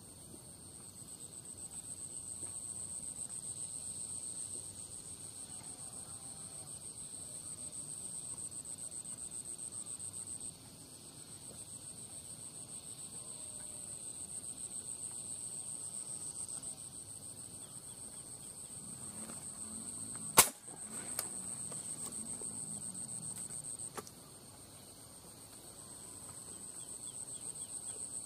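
Insects trilling steadily in a high, pulsing chorus that dips a few times. About two-thirds of the way through comes one sharp, loud crack, followed shortly by a fainter click.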